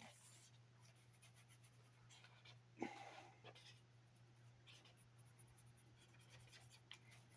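Faint scratching of a pen on drawing paper in short, irregular strokes, over a steady low hum. One brief, louder sound comes about three seconds in.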